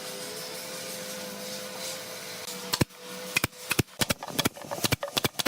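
A steady hum, then from about halfway a rapid, irregular run of about ten sharp knocks, like blows on wood.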